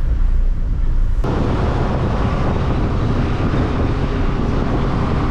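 Steady low rumble with wind noise on the microphone. About a second in it changes abruptly to a brighter, hissier rumble.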